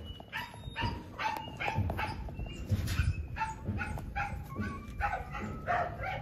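Newborn puppies crying: a rapid run of short, high-pitched squeaky cries, about three a second.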